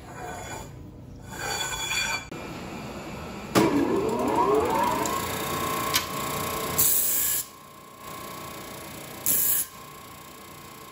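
Scraping and handling of metal at first; then an industrial disc sander is switched on, its motor whining up to speed and running steadily. A small metal part is pressed against the abrasive disc twice, in short loud hissing bursts.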